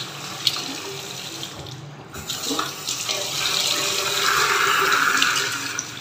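Water running from a single-lever mixer tap into a ceramic washbasin, splashing over a hand held in the stream; the flow grows louder about two and a half seconds in.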